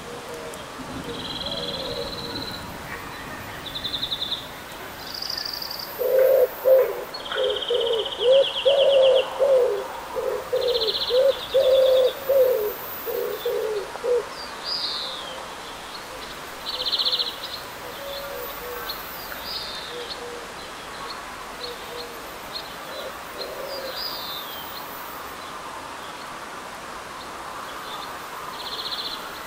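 Steady rain falling with birds calling through it: a run of low, rapid repeated calls from about six to fourteen seconds in, and short high chirps and buzzy trills scattered throughout.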